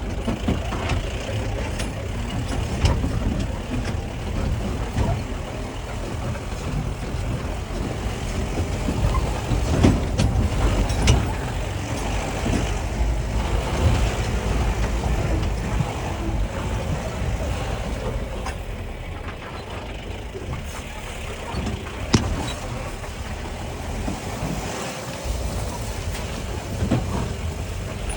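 Mahindra off-road vehicle driving over rough ground: a steady low engine and road rumble with occasional sharp knocks and rattles.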